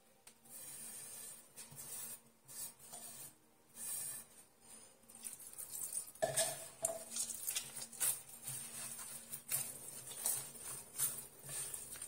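Hands kneading a soft, floury dough in a glazed clay dish, with irregular scraping, squishing and patting against the dish, over a faint steady hum.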